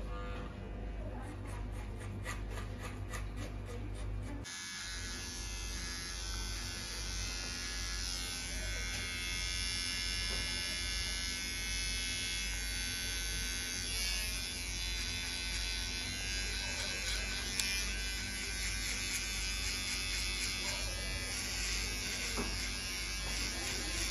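Electric hair clippers buzzing steadily as they cut hair close against the side of the head. The sound changes abruptly about four seconds in.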